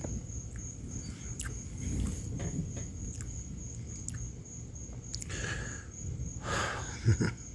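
Crickets chirping steadily at night, a high pulsing trill repeating about three times a second. Near the end come two short rustles and a brief low thump, the loudest sound.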